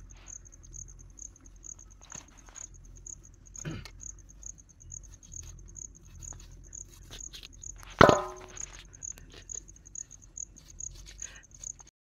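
An insect chirping steadily in a high, even pulse about four times a second, with faint ticks of handling. About eight seconds in, one short loud sound falling in pitch stands out as the loudest thing.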